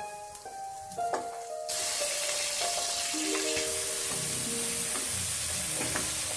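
Raw chicken pieces sizzling in hot ghee and oil in a pressure cooker. The sizzle starts suddenly about two seconds in as the chicken goes into the pan, then holds steady while a wooden spoon stirs it.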